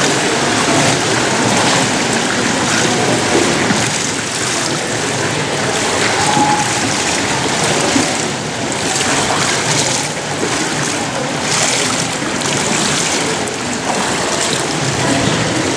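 Steady wash of water splashing and lapping in an indoor swimming pool.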